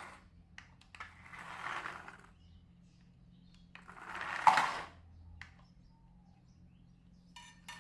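Plastic toy trucks being handled: two scraping, rolling noises of about a second each, the second with a sharp plastic click in it, and a few small clicks between.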